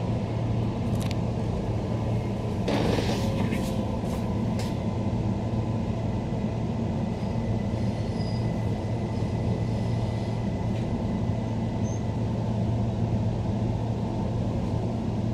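Interior running noise of a Queensland Rail NGR electric multiple unit: a steady low rumble and hum with a faint steady whine. There is a brief hiss about three seconds in.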